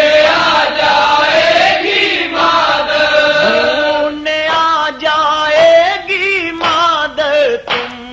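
Voices chanting a noha, a Shia mourning lament, in long held notes that waver and slide in pitch.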